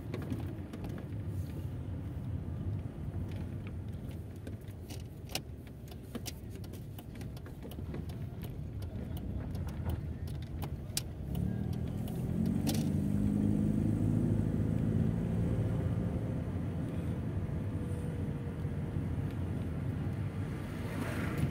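A car's engine and road noise heard from inside the cabin, with light rattling clicks through the first half. About halfway through, the engine grows louder with a pitched hum as the car speeds up.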